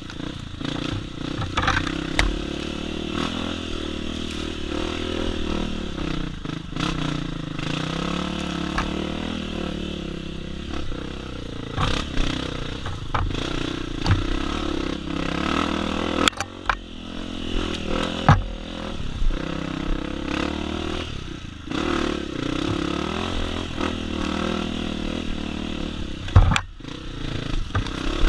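Honda CRF250F dirt bike's single-cylinder four-stroke engine running while being ridden, its pitch rising and falling with the throttle. Sharp knocks and rattles cut in several times.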